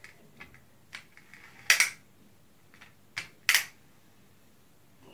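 Pull-back motors of die-cast 1:32 toy cars being wound as the cars are drawn back for a race. A few light clicks, then short rasping ratchet bursts, the loudest about two and three and a half seconds in.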